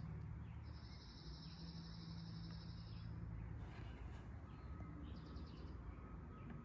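A faint, high, pulsing trill lasting about two and a half seconds, then a shorter one a couple of seconds later, over a low steady hum.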